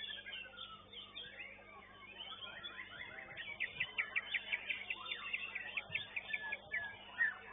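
White-rumped shama (murai batu) singing a varied song of whistles, slurred glides and chirps, breaking into a fast run of sharp repeated notes, about five a second, midway through.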